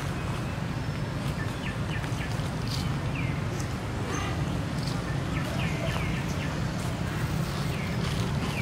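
Outdoor ambience: small birds chirping in short, scattered calls over a steady low rumble.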